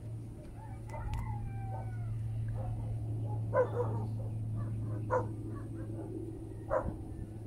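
A dog barking three times, about a second and a half apart, over a steady low hum.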